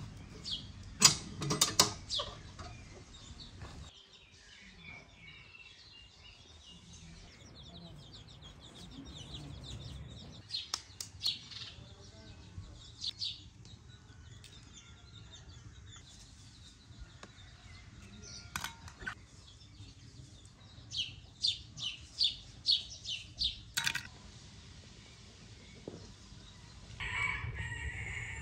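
Clanks from a small sheet-metal wood stove's door and firewood about a second in, then scattered clinks and taps while eggs are cracked and separated over a metal bowl, with birds calling now and then.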